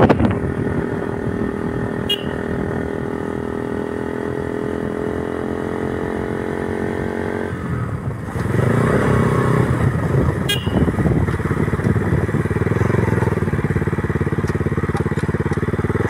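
KTM RC 200 single-cylinder engine running at steady cruising revs, heard from the rider's seat. About halfway through the engine sound gets louder and its pitch starts to waver as the revs change.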